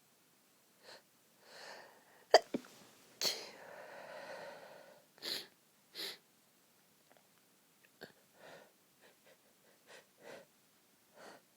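A woman's stifled sneezes in a sneezing fit, held back to keep them quiet: a run of short bursts, the sharpest and loudest about two seconds in, then smaller muffled ones with quiet gaps between.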